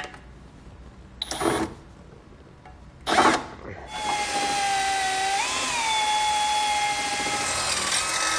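Cordless drill boring a small pilot hole through a Jeep's steel frame rail: a couple of short bursts on the trigger, then from about four seconds in a steady whine as the bit cuts, its pitch rising briefly once and sagging near the end.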